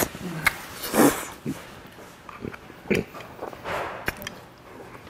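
Close-up eating sounds of a person slurping and chewing boiled chicken from a bowl, with short loud bursts of slurping about a second in, near three seconds and again shortly after, between soft mouth clicks.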